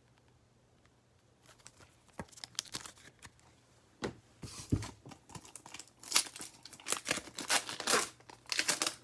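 Foil trading card pack being torn open by hand, the wrapper crinkling and crackling in quick sharp bursts. The first few seconds are nearly silent with a few faint ticks, and the tearing and crinkling starts about four seconds in and keeps going.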